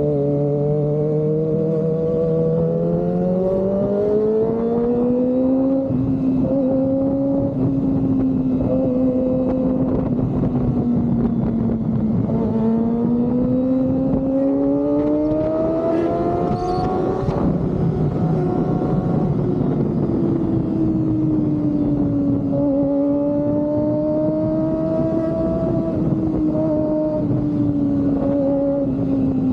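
Kawasaki ZX-25R's 250 cc inline-four running through an Austin Racing aftermarket exhaust while riding. The engine note rises and falls gently with the throttle, climbing over the first few seconds and again to a peak a little past halfway, then settling.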